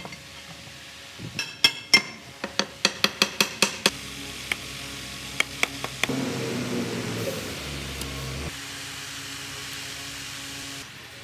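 Hammer tapping a fitting into a cast-metal transmission valve body. About a dozen sharp, ringing metal strikes come in quick succession, speeding up, and a few spaced single taps follow.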